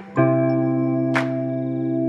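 Instrumental background music: held keyboard-like chords that change just after the start, with a sharp percussive hit about a second in.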